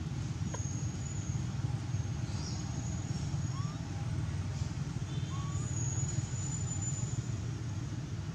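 Steady low outdoor background rumble, with a couple of faint short chirps about three and a half and five seconds in.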